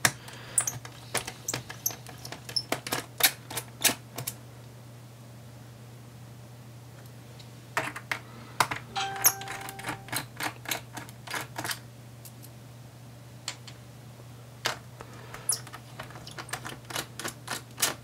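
Light clicks and taps of a small Phillips screwdriver and loose screws against a laptop's plastic base panel and the table as the base screws are taken out and set down, in irregular bursts with a pause of a few seconds in the middle. A steady low hum runs underneath.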